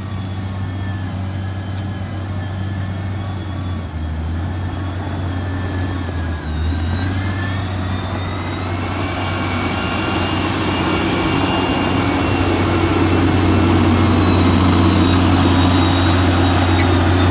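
Diesel engine of heavy road-construction machinery, a motor grader, running steadily with a faint high whine above it, growing louder through the second half.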